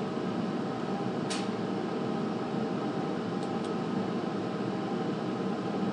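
Steady room hum and hiss. A single sharp mouse click comes about a second in, with two fainter ticks a couple of seconds later.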